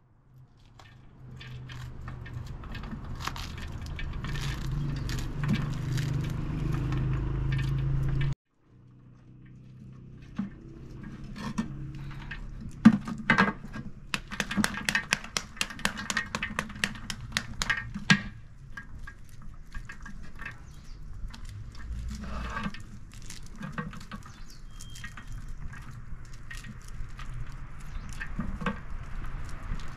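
Pomegranates being peeled and deseeded by hand with small knives over a metal basin: rind cracking and many short clicks and patters as arils drop onto the metal, busiest in the middle. For the first several seconds a steady low hum sits underneath, then it cuts off abruptly.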